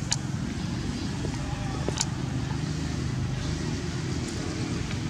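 Steady low rumble of outdoor background noise, like distant traffic, with two short, sharp high chirps: one right at the start and one about two seconds later.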